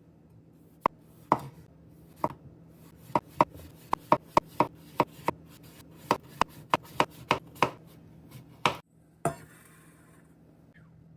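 Knife chopping on a cutting board: about eighteen sharp, unevenly spaced strokes, two to three a second, then a short scrape near the end.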